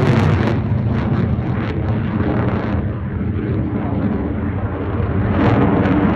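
Boeing F/A-18 Super Hornet jet passing overhead, its twin engines making loud jet noise with a crackle. The sound eases off in the middle and swells again near the end.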